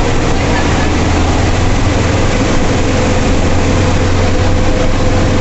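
Ashok Leyland 160 hp turbocharged diesel bus engine pulling steadily at highway cruising speed, heard from inside the cabin as a loud, even low drone mixed with road noise, with a thin steady higher tone above it.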